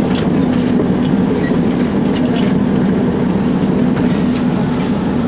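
Tatra T3 tram running, a steady electric hum with faint clicks and rattles.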